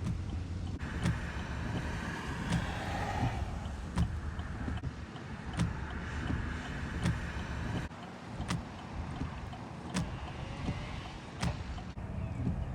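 Car cabin noise while driving: a steady low rumble, with a sharp tick about every second and a half.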